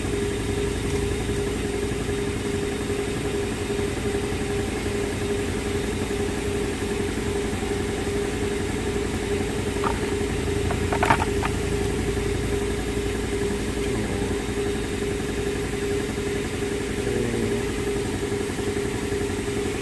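A steady machine hum with a constant tone, unchanged throughout, with a few short clicks about ten to eleven seconds in.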